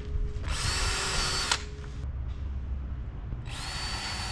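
Power drill running in two bursts of about a second each, its motor whine rising as it spins up and then holding steady.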